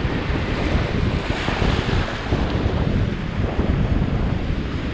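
Ocean surf washing through the shallows, mixed with heavy wind buffeting the microphone as a steady rumble.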